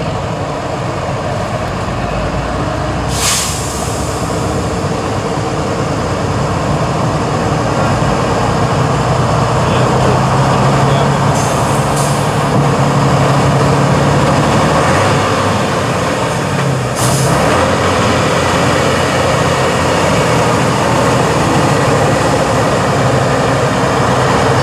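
Tatra 815 truck's diesel engine running under load as the truck crawls over rough ground, getting louder about eight seconds in. Short hisses of air from the truck's air brakes three times, about three, twelve and seventeen seconds in.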